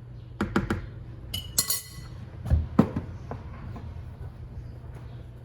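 Mixing bowls and utensils clinking and knocking as liquid batter ingredients are moved from a small bowl into a larger one, with a scrape and a ringing clink about a second and a half in and two knocks a little later, over a steady low hum.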